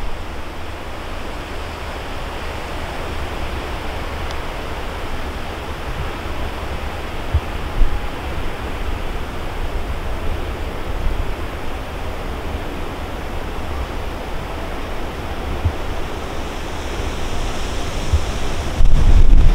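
Jet engines of a Boeing 777 on final approach, a steady rushing roar that slowly grows louder and brighter as the aircraft nears, with wind buffeting the microphone throughout; the buffeting becomes much louder just before the end.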